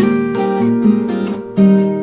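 Background music on acoustic guitar, a run of plucked notes changing every fraction of a second.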